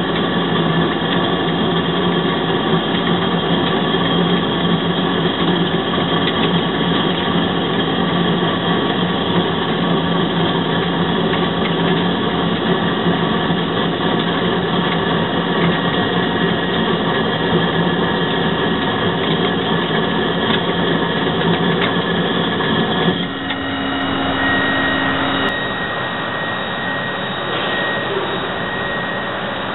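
Gildemeister GDM 90 MC CNC lathe running, its spindle spinning a bar workpiece in the chuck with a loud, steady hum and whine. About 23 seconds in the sound changes abruptly to a quieter, different steady machine hum with a thin high whine.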